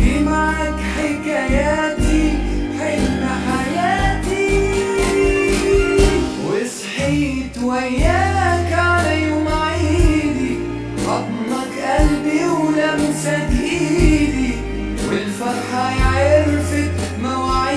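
A romantic Egyptian Arabic song: a singer holds and bends long melodic lines over instrumental backing with a steady bass.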